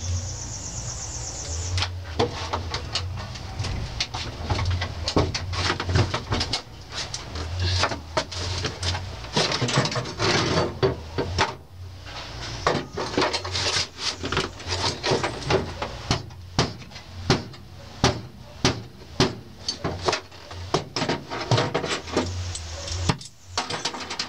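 Repeated knocks, clatter and scraping from hand work on a stripped BMW's bare metal floor pan, coming faster in the second half as a run of sharp knocks, a few each second.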